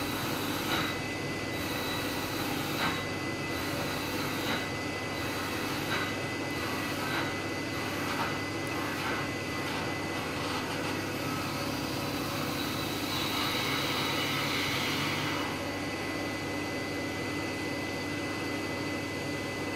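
Small CNC lathe running with a steady high whine while the cutting tool turns a wooden ball, scraping the wood in irregular strokes. About two-thirds of the way through, the cutting turns louder and harsher for a couple of seconds.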